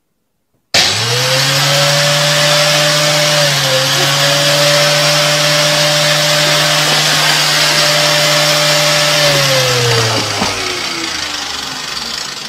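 Vacuum cleaner switched on with a sudden start, its motor running steadily with a loud rushing of air. Near the end it is switched off and the motor whine falls in pitch as it winds down.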